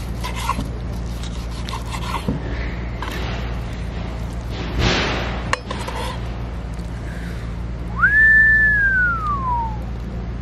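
Chef's knife slicing a grilled wagyu steak on a wooden cutting board, with light clicks and a brief scrape about halfway through, over a steady low hum. Near the end comes the loudest sound: a single clear whistle that rises quickly, holds, then slides slowly down in pitch.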